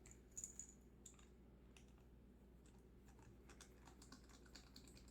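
Faint, scattered small clicks and ticks of a precision screwdriver turning a tiny screw out of a Nintendo Switch Joy-Con's plastic back shell.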